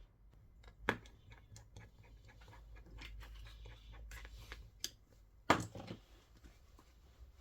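Small clicks, scratches and light taps from handling a smartphone and small repair tools on a workbench, with two sharper knocks, about a second in and about five and a half seconds in.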